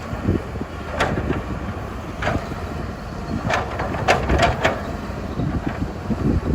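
Excavator working: a steady low engine rumble with a series of sharp knocks, several close together around the middle.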